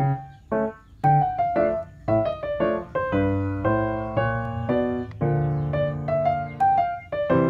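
Background piano music: a light melody of single struck notes, moving into held chords about three seconds in.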